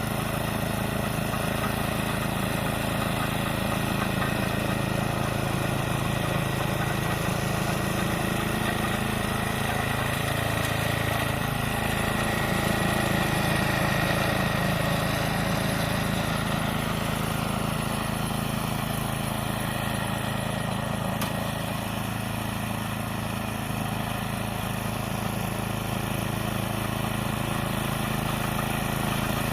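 Toro 828 snowblower's small gasoline engine running steadily.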